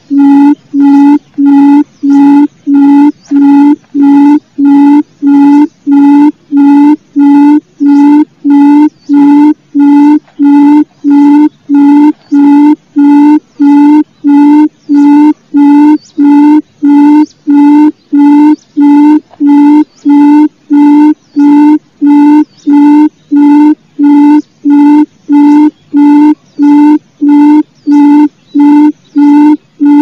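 Barred buttonquail (gemek) call: one low hooting note repeated steadily, about three every two seconds, a call played to lure quail.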